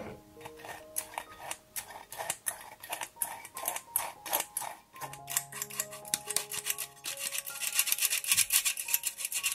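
Hand-operated stainless steel flour sifter being worked over a bowl of cocoa powder: its wire agitator scrapes the mesh in quick rasping strokes that come thickest in the last two seconds. Soft background music plays underneath.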